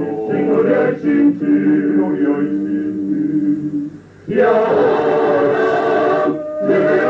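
Basque otxote, a male vocal octet, singing a cappella in close harmony. A held chord fades out about four seconds in, and after a brief pause a new, louder phrase begins.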